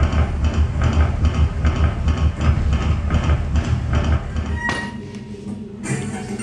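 Rhythmic recorded sound cue: a deep pulsing beat, about three pulses a second with a clatter above it. It stops with a click about four and a half seconds in, and a brighter new sound comes in near the end.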